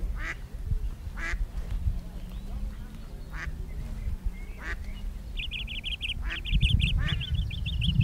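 Waterfowl calling now and then, a short call every second or two, over wind rumbling on the microphone. About five seconds in a small bird starts a fast, high trill.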